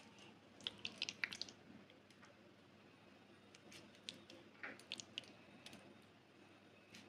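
Faint wet squishing and small sharp clicks as pieces of spice-marinated chicken are pushed onto bamboo skewers in a glass bowl. The sounds come in two short clusters, about a second in and again around the middle.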